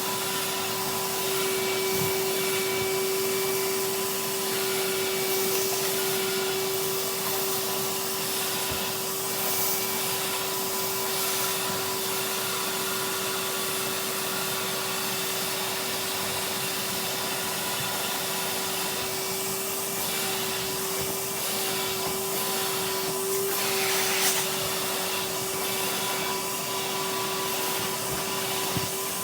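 Henry cylinder vacuum cleaner running steadily, its motor giving a constant whine over the rush of suction. About 24 seconds in the suction briefly surges louder.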